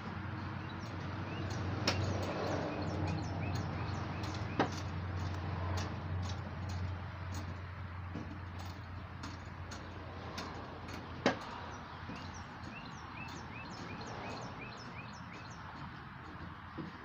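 Outdoor background: a low hum, likely a vehicle or traffic, swells and fades over the first half. A small bird repeats short chirps in quick series. A few sharp clicks, probably handling noise, stand out, the loudest about 2, 4.5 and 11 seconds in.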